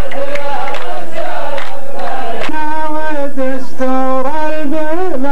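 Rows of men chant a line of muhawara poetry in unison over hand claps. About halfway in, one man's voice takes over into a microphone, singing long, drawn-out wavering notes.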